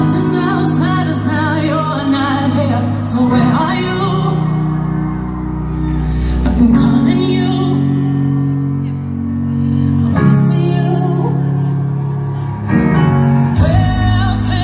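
Recorded song played over loudspeakers for a solo dance routine: a wavering sung melody over sustained low chords. A louder section with strong bass comes in near the end.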